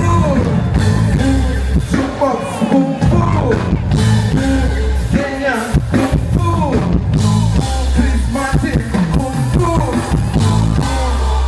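Live band music with a singing voice over heavy, held bass notes, played loud through a concert sound system.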